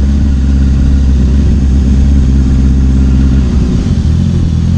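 Honda CBR650R's inline-four engine running steadily at low road speed, heard from the rider's seat. About three and a half seconds in, its note drops and settles lower as the throttle is eased off and the bike slows.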